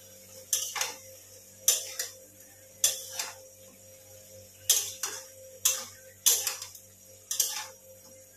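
Flat metal spatula scraping and knocking against a steel kadai while mutton is stirred, in sharp strokes about once a second, often two close together.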